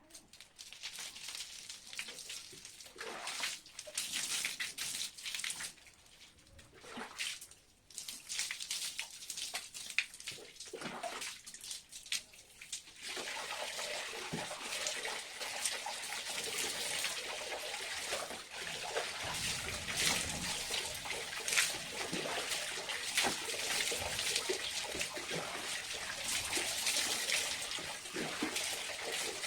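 Hair being washed by hand with water: intermittent splashing and sloshing of wet hair for the first dozen seconds or so, then water running steadily from about 13 seconds in.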